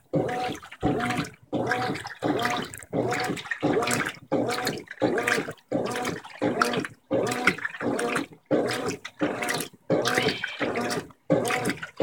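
Brastemp 15 kg top-load washing machine agitating on turbo in its wash stage: the impeller reverses in short strokes, a little under two a second, each a motor whine with the water and a queen-size bedspread sloshing in the drum.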